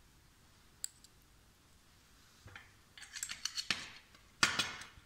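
Small metal corner brackets and an aluminium snap-frame profile being handled: a single click about a second in, then a run of quick clicks and metal-on-metal scraping as a corner piece is worked into the profile, loudest near the end.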